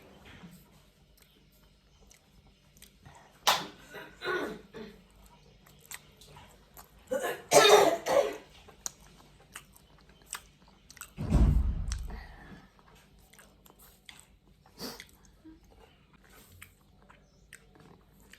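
A person coughing and clearing her throat in several separate fits, the loudest a little before halfway, while eating. Faint chewing clicks come between the coughs.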